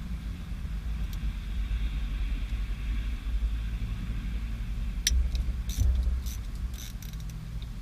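Low steady rumble, with a few sharp clicks and taps of a tool on the center console's bolts and trim between about five and seven seconds in.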